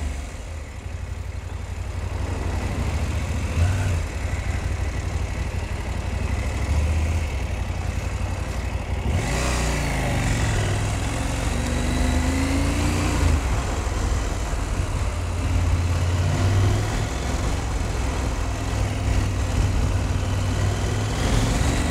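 KTM 790 Adventure's parallel-twin engine running as the motorcycle rides along, with a steady low rumble. Around nine seconds in the rushing noise grows and the engine note rises and falls as the revs change.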